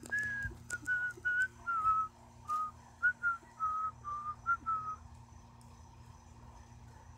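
A person whistling a short run of about a dozen clear notes that wander up and down and drift slightly lower in pitch, stopping about five seconds in. A few soft clicks of handling or steps sound along with it.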